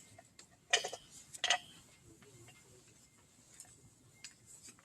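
A few short clicks: two sharper ones under a second apart near the start, then a few faint ticks.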